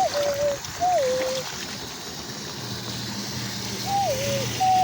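Water draining away through a freshly unblocked drain, a steady trickling rush, under loud, clear whistle-like notes that slide up and down, heard in a few short phrases at the start and again near the end. A low steady hum joins about halfway through.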